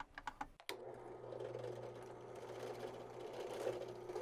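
Ryobi benchtop drill press running, its twist bit boring a screw hole through a plywood template. A few light clicks come first, then a steady motor hum starts under a second in.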